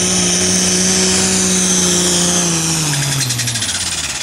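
Turbocharged diesel engine of a light pro stock pulling tractor running flat out under load, with a steady deep note and a high turbo whine. About three seconds in the engine note drops in pitch and the sound falls away as the engine is throttled back.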